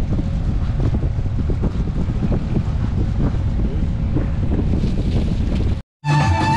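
Wind buffeting the microphone on the open deck of a boat on the water, a steady low rumble with hiss above it. Near the end it cuts off sharply, and after a moment of silence music with a violin begins.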